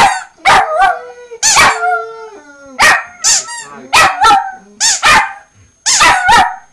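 Small dog barking loudly and repeatedly, about a dozen high-pitched barks, often two in quick succession.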